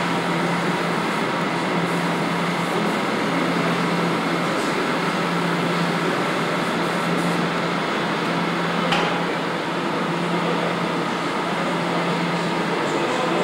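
Paint spray booth's ventilation running: a steady rush of air with a low hum underneath.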